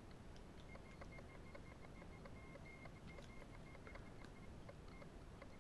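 Near silence with faint, scattered small clicks of a Victorinox Hercules pocket knife's tools being folded out, over a faint broken high-pitched tone.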